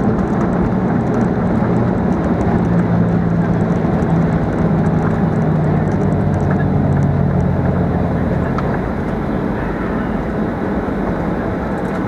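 Cabin noise inside a Boeing 737-800: a loud, steady rumble from its CFM56 engines and the airflow, with a low steady hum over it in the middle. The noise eases slightly about two-thirds of the way through.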